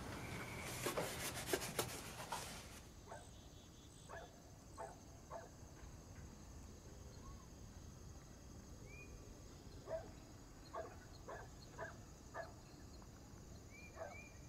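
Rubbing and scraping strokes for the first few seconds, then quiet with scattered light taps and a steady high insect trill of crickets.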